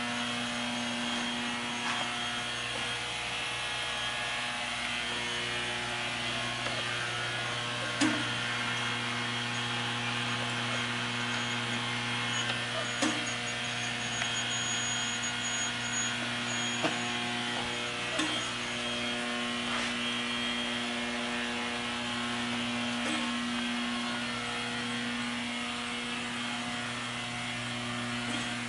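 BTU industrial furnace running at temperature: a steady electrical hum and fan hiss, with a few sharp clicks at irregular intervals.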